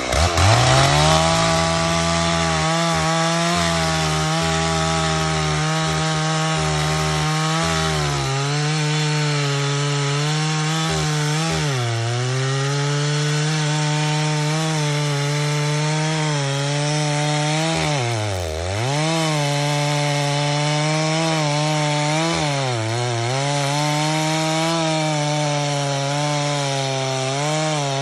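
Stihl 064 two-stroke chainsaw held at full throttle while cutting wood. The engine note climbs at the start, then holds steady with several brief sags as the chain bogs under load, the deepest about two-thirds through.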